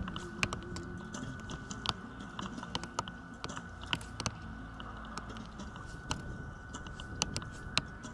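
Scattered sharp clicks and knocks from an archery range during shooting, arrows striking target bosses and bows being loosed along the line, several a second at irregular intervals. Under them runs a low rumble of wind on the microphone and a faint steady high whine.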